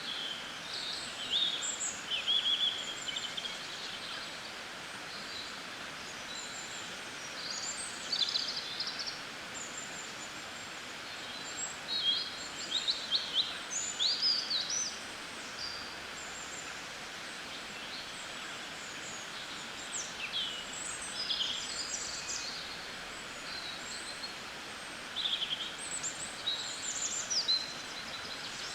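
Songbirds chirping and singing in scattered bursts of quick, high notes over a steady background hiss.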